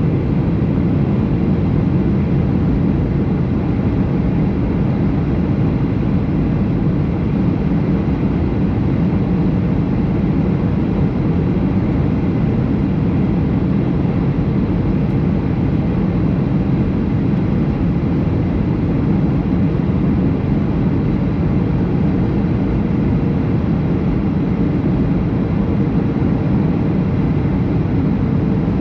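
Steady engine and airflow noise inside the passenger cabin of a Boeing 737 airliner: an even low rumble that does not change.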